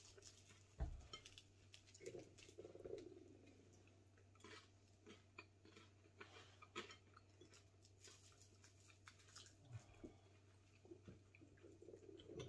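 Faint eating sounds: quiet chewing of crusty toasted bread and meatballs, with scattered light clicks of spoons against bowls, over a low steady hum.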